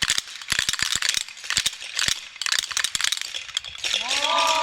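Wooden Easter rattles (Klappern) clacking in repeated bursts of rapid strokes, sounded in place of the church bells to call the morning bell before Easter.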